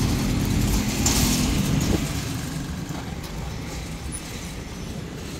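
Motor vehicle engines running with a steady drone, loudest for the first two seconds and then settling to a lower, even traffic rumble as motorcycles move off across the crossing.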